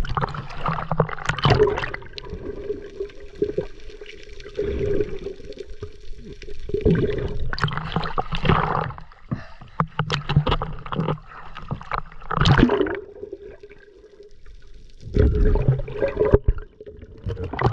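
Sea water sloshing and gurgling against a small boat's hull in irregular surges, with scattered knocks and a faint steady hum underneath.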